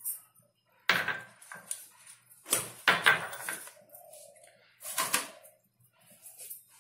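Knocks and scrapes of a plastic sieve and hands against a cut-glass bowl while sifting steamed wheat flour: a sharp knock about a second in, a cluster of knocks around three seconds, and another near five seconds.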